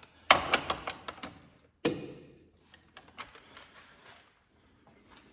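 Click-type torque wrench ratcheting and clicking on the lower control arm's 15 mm bolts, set to 52 foot-pounds: it clicks almost at once, a sign the bolts are already at torque. A quick run of sharp metallic clicks comes in the first second, one louder click near two seconds in, then lighter scattered ticks.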